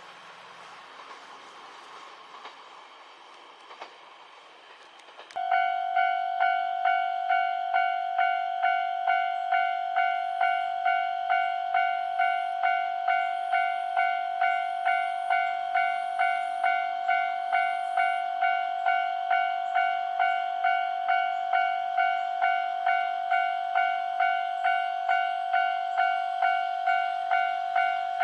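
A train's running noise fades out. About five seconds in, a Japanese level crossing's electronic warning bell starts ringing at about two dings a second, the signal that a train is approaching.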